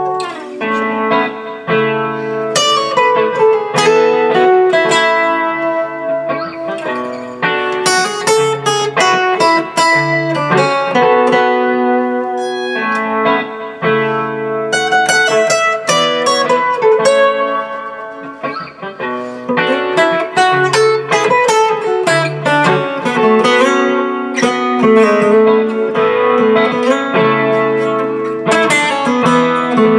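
Larrivée steel-string acoustic guitar heard through its K+K Mini passive pickup into a Lab Series L9 amp with no preamp. A looped chord progression plays while single-note lines are picked over it.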